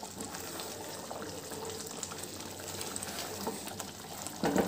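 Thick butter chicken gravy boiling in an open pan, bubbling and popping softly as a spatula stirs it, with a louder splutter near the end.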